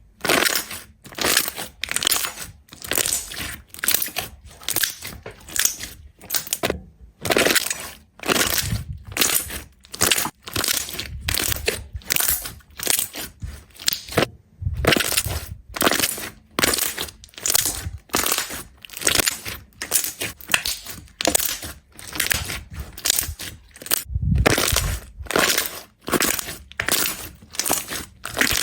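Crunchy slime being squeezed and pressed, a fast run of crackling crunches about two or three a second, with a couple of short pauses.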